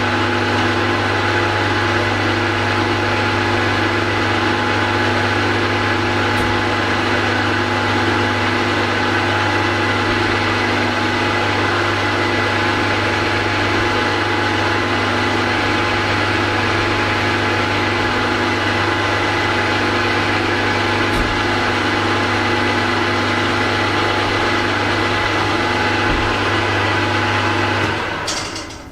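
Milling machine running steadily with a drill in the spindle, drilling a hole in a carburettor part, with a constant motor hum and whine. The machine winds down near the end.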